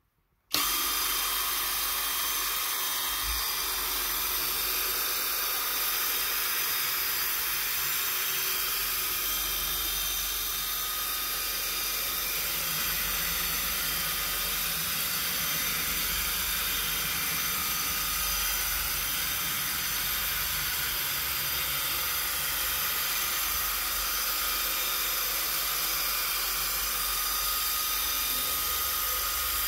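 Kobalt XTR cordless drill spinning a drill-brush scrubber against a foamy floor: a steady motor whine over the hiss of bristles scrubbing, starting about half a second in and holding steady without a pause.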